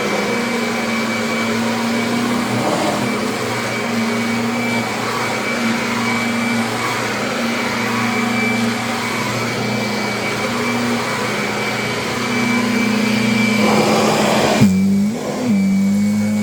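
Kirby upright vacuum cleaner running steadily, with a constant motor hum and a high whine. About fourteen seconds in, the hiss suddenly drops off and the hum shifts slightly in pitch.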